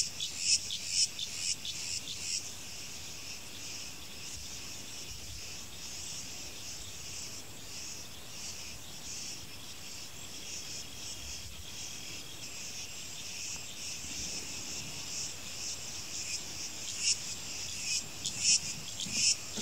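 Field insects chirping: a high-pitched chorus that pulses about twice a second at the start and again near the end, and runs steadier in between.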